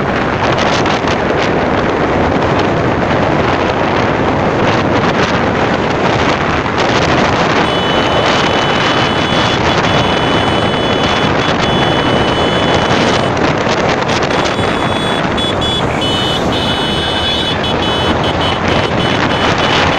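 Steady loud rush of a waterfall's falling water. A thin high steady tone sounds over it from about eight seconds in, breaking off and returning.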